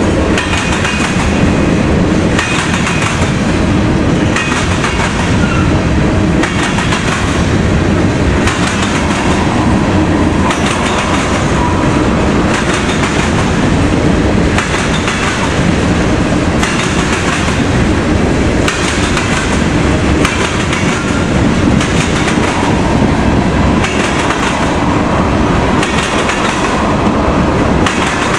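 Loaded freight cars (covered hoppers and tank cars) rolling past, their steel wheels pounding and clattering over a railroad diamond crossing. The loud rolling roar is broken by a clatter about every two seconds as each car's wheel sets cross.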